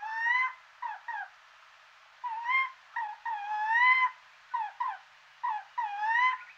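Eurasian jay calling: a series of short, clear, whistled call notes in irregular groups. Some are brief down-slurs and others are longer up-slurred mews, the longest about halfway through.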